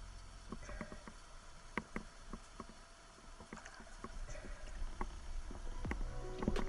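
Faint water noise with scattered sharp clicks and knocks.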